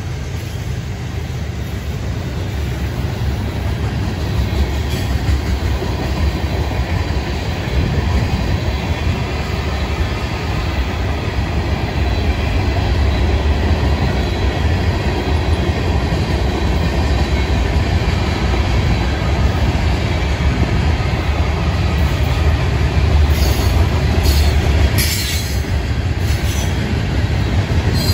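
Freight cars of a Florida East Coast train, ballast hoppers and tank cars, rolling past over a road crossing: a steady heavy rumble of steel wheels on rail that grows a little louder, with a few brief high-pitched wheel squeals near the end.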